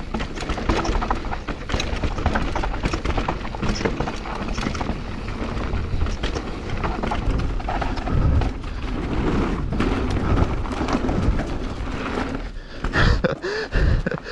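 A mountain bike descending a rough dirt and gravel trail: the tyres rumble over the ground and the bike rattles and knocks over bumps, with wind rushing over the action-camera microphone.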